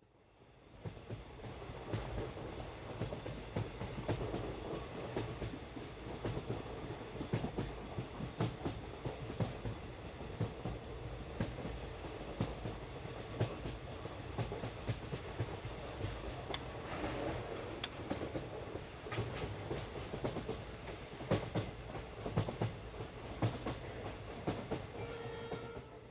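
Miniature ride-on toy train running on its track: a steady rumble with many irregular sharp clicks from the wheels and cars, fading in over the first couple of seconds.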